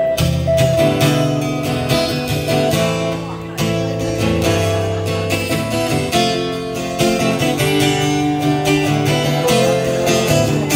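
Acoustic and electric guitar playing a song's instrumental intro, with no singing: the acoustic strums chords while the electric guitar holds lead notes over them.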